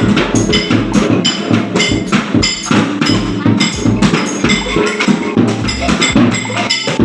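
Several children striking percussion instruments and household objects at once: a dense, irregular clatter of knocks and ringing metallic strikes, over low drum thuds about twice a second.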